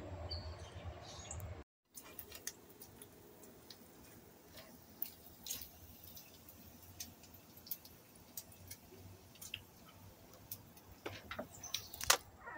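Faint outdoor background with scattered light clicks and ticks, more of them near the end. A low steady hum at the start cuts off abruptly about two seconds in.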